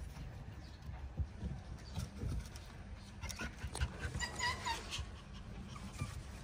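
A puggle puppy gives one short, high whimper about four seconds in, among scattered low thumps as puppies move about on wooden deck boards.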